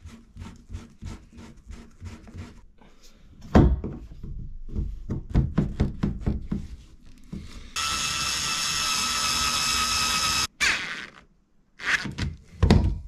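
Knocks and clatter of a hose and pipe fittings being handled, with one loud knock a few seconds in. A small cordless screwdriver then runs steadily for about three seconds, driving a stainless steel hose clip tight, stops suddenly, and gives a few short bursts near the end.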